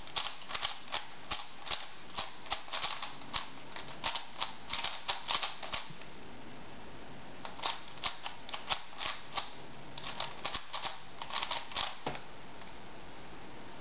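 Plastic 4x4 puzzle cube being turned quickly by hand: rapid runs of clicking layer turns, with a pause of about a second and a half midway. The clicking stops shortly before the end as the solve finishes.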